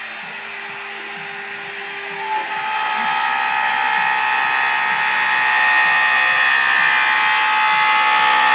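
Homemade CNC machine running: a steady electric motor whine that comes in and grows louder about two seconds in.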